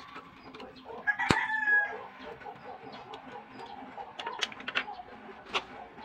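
A chicken calls once, loud and pitched, about a second in, lasting around a second. Sharp clicks and taps of small metal parts and tools being handled sound throughout, the loudest one during the call.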